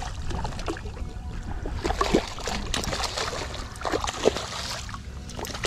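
Hooked redfish thrashing at the water's surface, splashing in uneven bursts.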